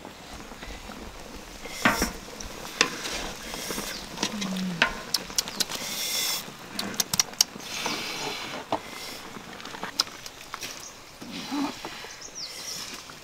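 A metal spatula scraping and knocking against a large metal wok as cooked fish is lifted out of the simmering broth onto a tray, with irregular sharp clinks and spells of hissing scrape.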